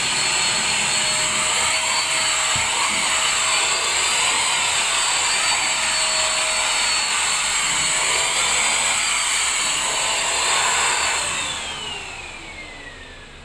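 Small corded handheld vacuum cleaner running against fabric sofa upholstery: a steady high motor whine over rushing air. About eleven seconds in it is switched off, and the whine falls in pitch and fades as the motor spins down.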